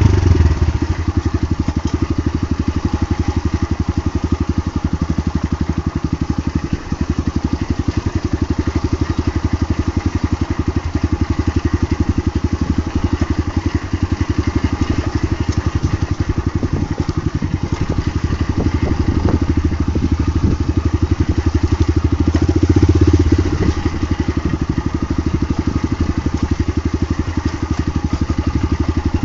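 Single-cylinder dirt bike engine idling in neutral while the bike coasts downhill over a rough dirt trail, with knocks and rattles from the bumpy ground. The engine note swells briefly about three-quarters of the way through.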